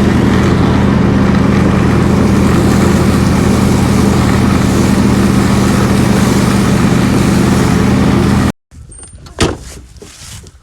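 An engine running steadily at one constant speed, cut off abruptly about eight and a half seconds in; after it come a few sharp clicks and knocks.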